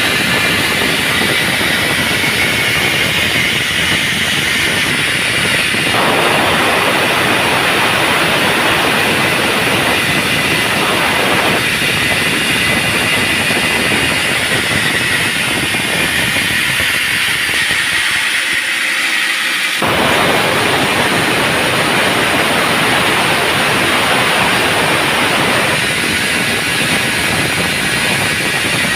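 Band sawmill sawing a teak log: a loud, steady rush of saw noise with a sharp band in it, which changes abruptly in character several times.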